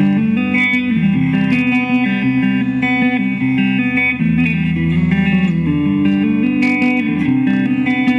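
Ibanez GRG120QASP electric guitar being played, a steady run of sustained notes and chords.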